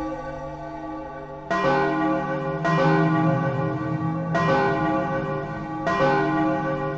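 The Taco Bell "bong" meme sound effect: a deep, bell-like tone struck four times, each stroke ringing on and overlapping the next.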